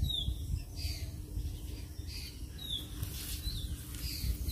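A bird calling: a short, high, falling chirp repeated roughly once a second, over a steady low rumble.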